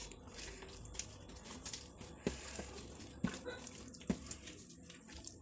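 A person eating rice and curries: wet mouth and hand sounds of chewing and handling food, with a few sharp clicks about a second apart.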